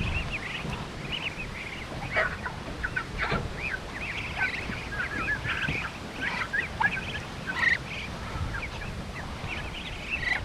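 A flock of ducks calling while feeding on black soldier fly larvae: many short, high, overlapping calls throughout.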